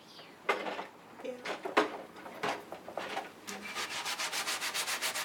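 Dishes being scrubbed at the sink: a few irregular rubs and scrapes, then from about three and a half seconds in quick, even scrubbing strokes, about six a second.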